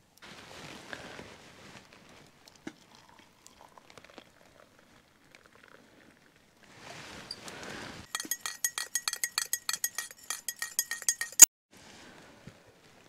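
Hot water poured from a metal camp pot into a mug, then a spoon stirring tea in the mug: a quick run of ringing clinks for about three seconds, ending with one sharp tap.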